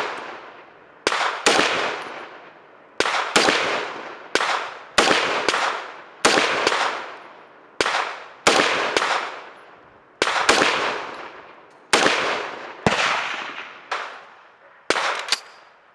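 Gunfire at a shooting range: about twenty sharp reports at an irregular pace, often in pairs about half a second apart, each trailing off in a long echo.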